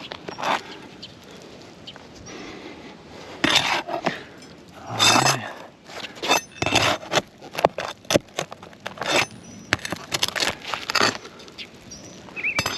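Nails being pried out from under asphalt roof shingles with a metal tool: irregular scraping and sharp clicks, with several louder scrapes in the middle.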